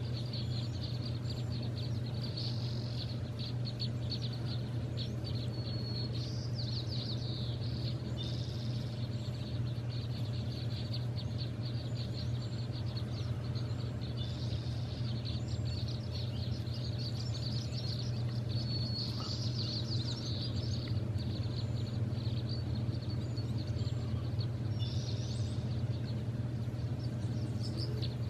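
Songbirds chirping and trilling, many short calls one after another, over a steady low hum.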